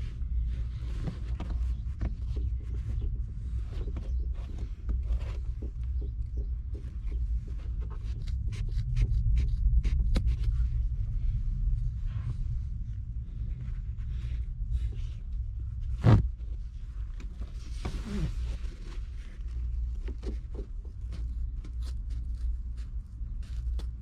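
Scattered light clicks, taps and rustles of hand work on car parts, with one sharp louder knock about two-thirds of the way through, over a steady low rumble.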